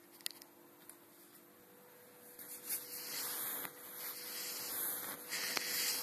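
Rough rubbing, scraping noise starting about two seconds in and running for about four seconds, over a faint steady hum.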